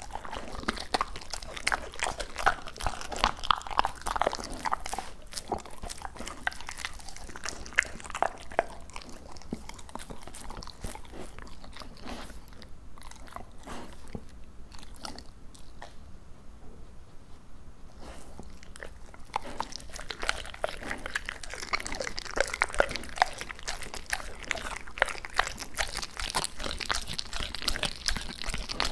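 Labrador retriever chewing raw duck close to the microphone: wet biting and crunching that eases off for several seconds in the middle, then picks up again.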